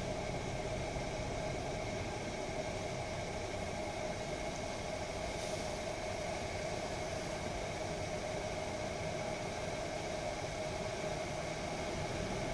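Steady hum of an engine over a low rumble and hiss, its pitch and level unchanging throughout.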